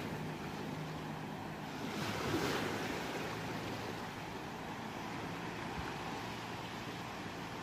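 Ocean waves washing onto a shore, a steady surf hiss with one wave surging louder about two seconds in.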